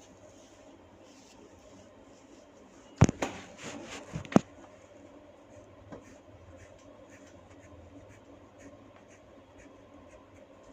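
Hands rubbing and scratching through hair and scalp during a head massage. About three seconds in comes a short run of loud, sharp cracks lasting about a second and a half.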